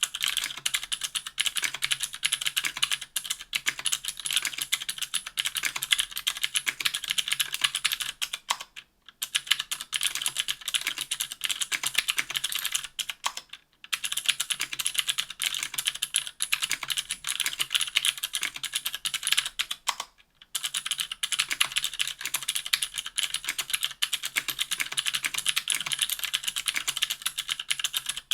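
Fast typing on stock Cherry MX Blue clicky mechanical switches (50 g) in an aluminium 60% keyboard with an aluminium plate and GMK keycaps: a dense stream of sharp, crisp clicks, stopping briefly three times.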